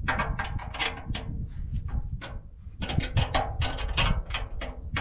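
Socket ratchet clicking in quick, irregular strokes, several a second, loosening the bolts that hold a tractor canopy on.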